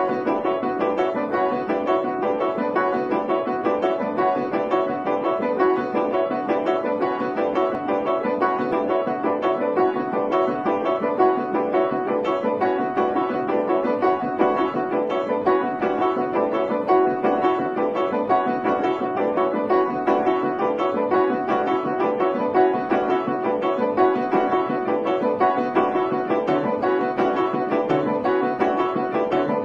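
Background music played on piano, a steady flow of notes without pause.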